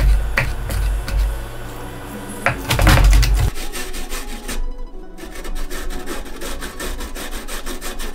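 A chef's knife chopping raw carp on a wooden cutting board in a few sharp knocks, then, about three and a half seconds in, a carrot rubbed up and down a metal box grater in quick repeated scraping strokes.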